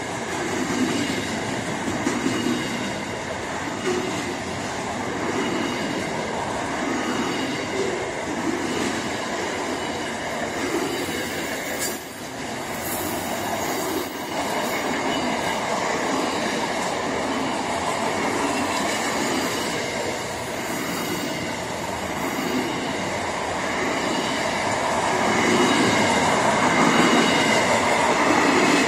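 Freight train of container wagons passing close by: a steady rumble and rattle of wagons, with a repeating beat of wheels over the rails and a thin high wheel squeal over it. It grows louder near the end.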